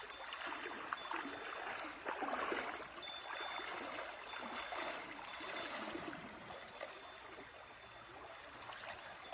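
Mountain stream rushing and gurgling over rocks in a steady wash, with one louder sudden knock or splash about three seconds in.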